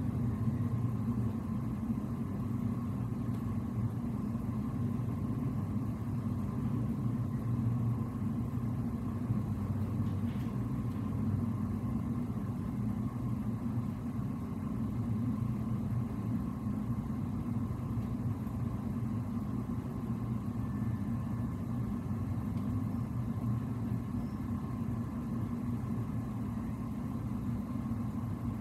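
Steady low rumble of a ship's machinery and ventilation heard inside the wheelhouse while underway, with a faint steady higher hum above it.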